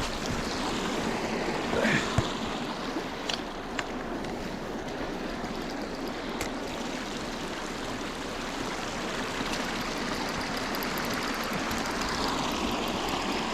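River current running steadily over shallows, with a few faint clicks.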